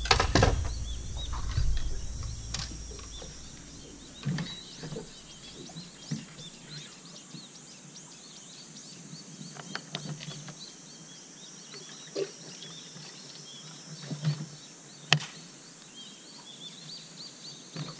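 Birds chirping and singing, with scattered knocks and thumps from handling on the boat deck, the sharpest about fifteen seconds in. A low rumble fills the first couple of seconds.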